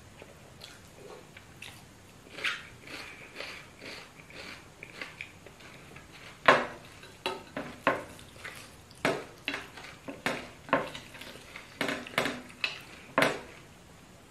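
Eating by hand from ceramic plates: scattered clinks and taps of fingers and fried fish against the plate as the fish is picked apart. Softer in the first half, then a run of a dozen or so sharp knocks about halfway through.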